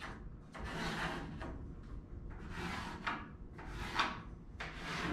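Rubbing and scraping on pine boards as a line is marked along a steel-tube straightedge laid across them: about four separate swishing strokes, with a sharp tick about four seconds in.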